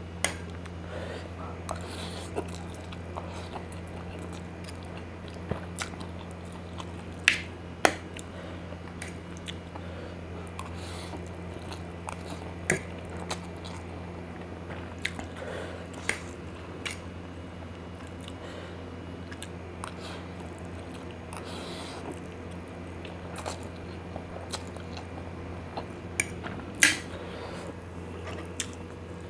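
Close-up chewing and biting of spicy noodles, with sharp clicks of cutlery against the plate and bowl now and then, over a steady low hum.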